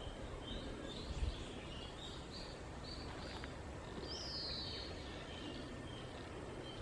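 Small birds chirping and calling in short repeated notes, with one longer call about four seconds in, over steady outdoor background noise; a brief low thump about a second in.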